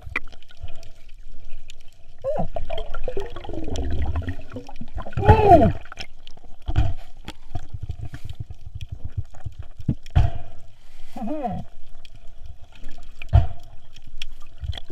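Water gurgling and trickling around a snorkeler in the sea, with a few louder gurgles, the loudest about five seconds in, falling in pitch.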